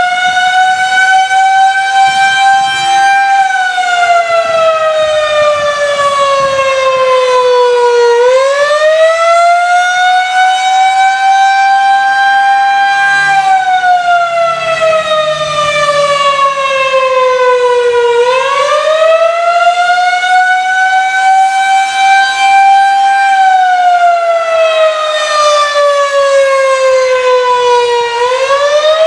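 Federal Signal 2001-130 rotating outdoor warning siren sounding the Attack signal: a loud wail that rises for a few seconds, then slowly falls, repeating about every ten seconds while the horn turns.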